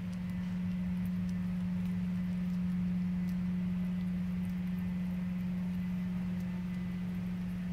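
A steady low machine hum, with faint scattered clicks of a grey squirrel gnawing a nut.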